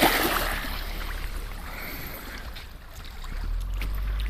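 Outdoor water and wind noise: a steady low rumble of wind on the microphone over an even hiss like moving water, loudest at the very start.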